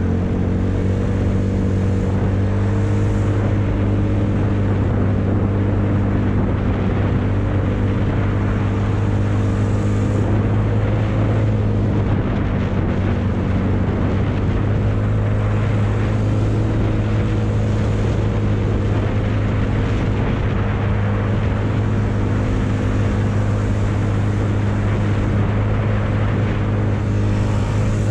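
Small motor scooter engine running at a steady speed while riding, with wind rushing over the microphone.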